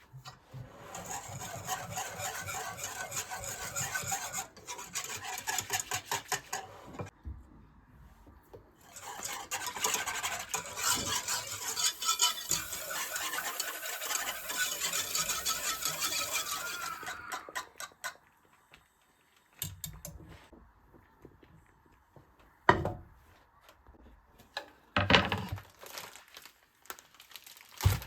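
Kitchen food preparation: two long bouts of rapid scraping and rubbing, like utensils or hands working food in a bowl. These are followed by a few sharp knocks of utensils or dishes near the end.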